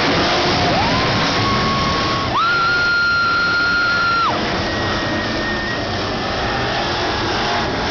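Monster truck engines running amid a loud arena din, with music playing three long held high notes, each sliding up as it begins.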